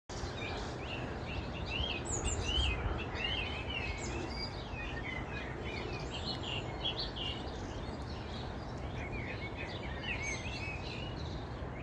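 Several songbirds singing and chirping over a steady outdoor background noise.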